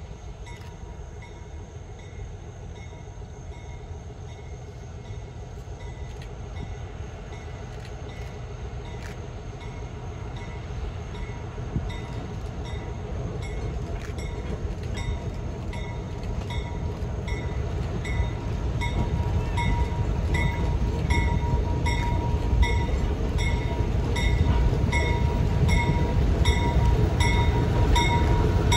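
Small diesel switcher locomotive approaching slowly with a train, its engine and rail rumble growing steadily louder. From about halfway through, a bell rings at a steady pace.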